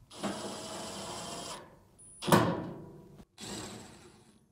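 A power screwdriver runs steadily for about a second and a half, driving in a screw that holds a Samsung dryer's steam water valve. A sharp knock comes about halfway through, and a softer one follows near the end.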